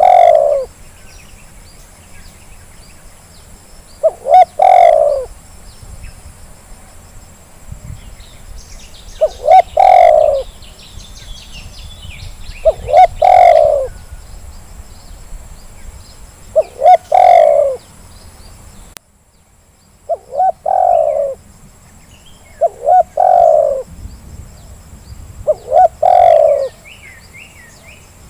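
Spotted dove cooing: a call of a couple of short clipped notes running into a longer note, repeated about every three to four seconds. It is a lure recording played to coax a reluctant dove into calling. Faint chirps of small birds sound in the background.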